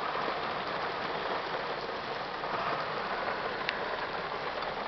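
Rain falling steadily: a dense, even hiss.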